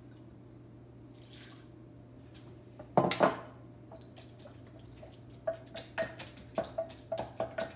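A faint pour of brandy, then a loud clatter about three seconds in. From about halfway, a stirring utensil clinks quickly against a glass measuring cup, about four clinks a second, each with a short ring.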